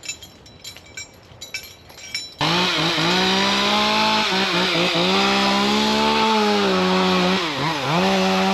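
A few light clicks and knocks, then a chainsaw starts about two seconds in and runs at high revs, its pitch dipping briefly a few times as it works. The wood being cut is dead oak, which the climber finds rotten ('doty').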